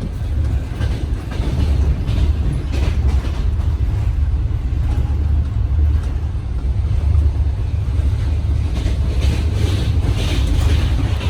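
Steady low rumble of a moving passenger train heard inside the carriage, with scattered light knocks and rattles.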